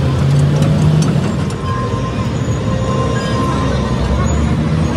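Steady low engine rumble of road vehicles, with music playing over it.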